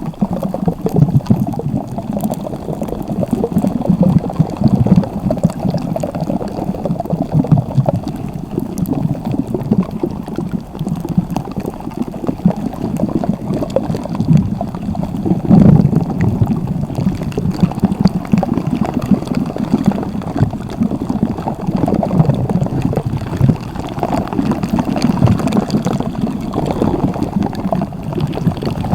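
Slime being squeezed and kneaded by hand, a continuous irregular run of wet squelching and squishing sounds.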